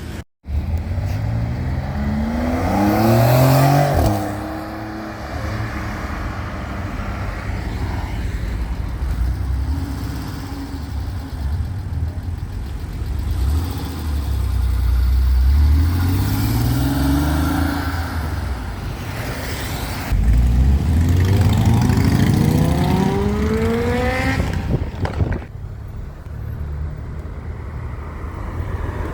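High-performance sports car engine accelerating hard, its pitch climbing steeply and dropping off sharply about four seconds in. After a stretch of lower engine and road noise, a second hard acceleration climbs steadily in pitch for about four seconds before cutting off.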